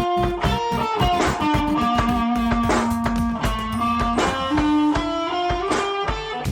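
Guitar-led music: sustained single notes over a steady drum beat with bass.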